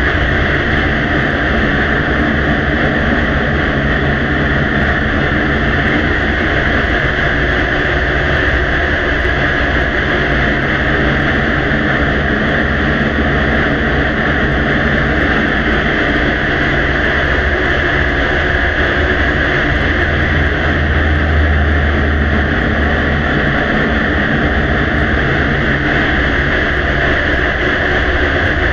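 Steady hiss and low hum of a quiet recording's background noise, heavily amplified, with no distinct events. The low hum swells briefly about twenty seconds in.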